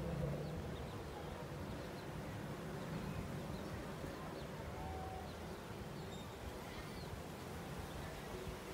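Outdoor yard ambience: scattered short, high chirps from small birds over a steady low rumble.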